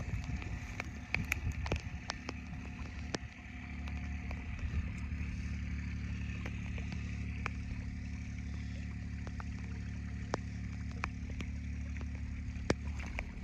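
Someone scrambling down a muddy ditch bank through vegetation: scattered clicks and rustles of footsteps, twigs and leaves. From about three seconds in, a steady low hum like a distant engine runs underneath.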